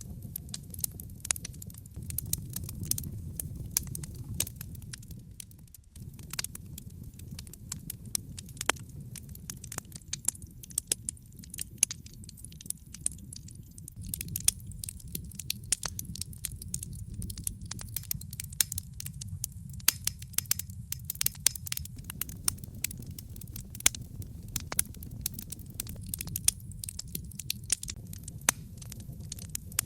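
Wood logs burning in a fireplace, crackling: many sharp pops and snaps at irregular intervals over a low steady rumble of the fire.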